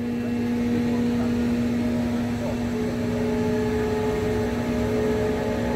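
Steady mechanical hum holding one constant low tone with fainter higher tones above it; another higher tone joins about two and a half seconds in.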